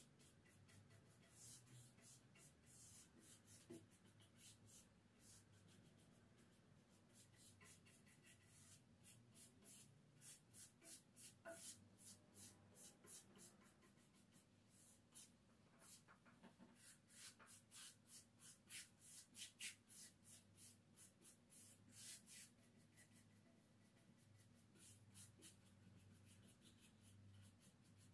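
Faint, quick swishes of a paintbrush stroking paint along a handrail, coming in irregular runs of short strokes, busiest in the middle.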